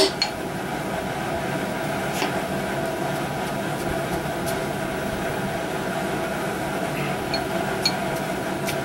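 Steady mechanical hum with a few faint, isolated clicks of metal parts being handled at the engine block.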